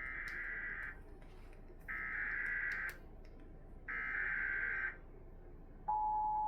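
Emergency Alert System header: three one-second bursts of SAME digital data tones, a harsh electronic warble, about a second apart. Near the end, the louder, steady two-tone EAS attention signal begins.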